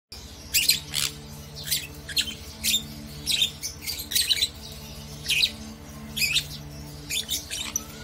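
Sun conures giving short, high-pitched squawking calls, about a dozen in irregular succession, over a faint low steady background tone.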